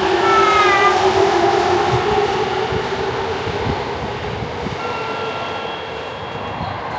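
Electric commuter train running along the platform, with a rumble and the whine of its motors in several tones. A falling whine comes near the start, and steady high whines come in from about five seconds.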